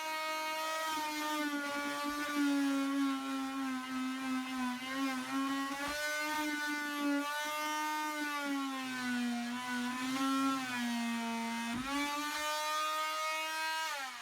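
Oscillating multi-tool running with a steady whine, its pitch dipping and recovering as the blade is worked into the material. Near the end it is switched off and the whine falls away.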